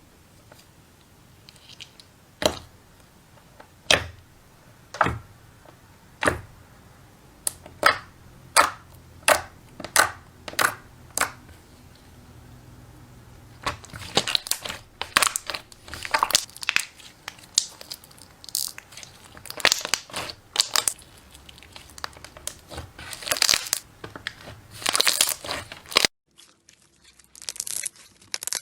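Slime being pressed and worked by hand: a string of separate sharp pops, about one a second, gives way to denser crackling and crunching bursts.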